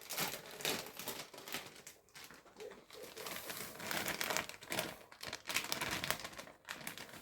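Packet of cake mix being handled, a plastic or paper wrapper crinkling and rustling in irregular crackles as it is worked open and emptied.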